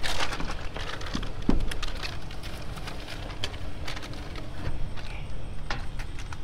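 Objects being handled and knocked about in a dumpster: scattered clicks and knocks, with a dull thump about a second and a half in, over a faint steady hum.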